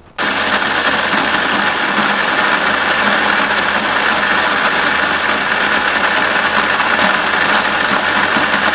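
Electric mixer grinder's motor switching on abruptly and running steadily at high speed, grinding dried ginger into fine powder in its steel jar.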